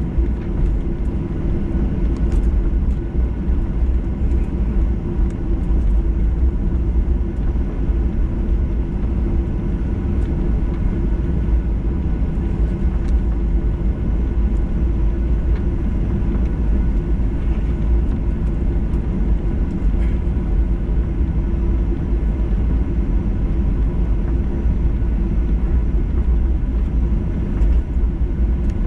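Cabin noise of a jet airliner moving slowly on the ground: a steady low rumble from the engines and rolling airframe, with a faint steady hum above it.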